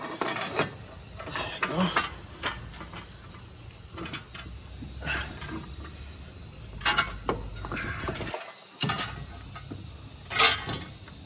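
Irregular metallic clicks and clinks of hand tools and hub parts being handled, with a few sharper knocks about 7 and 10 seconds in.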